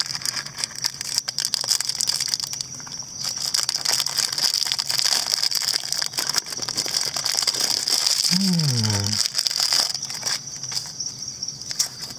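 Foil wrapper crinkling and crackling as it is unwrapped by hand, over a steady high chirring of crickets in the background. A brief low hum from a voice, falling in pitch, comes about eight seconds in.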